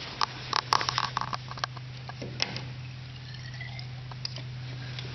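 Handling sounds: sharp clicks, knocks and rustles in the first second and a half as a fuel-sampler tube is brought up to a light aircraft's under-wing fuel drain, then only a steady low hum with a few faint ticks.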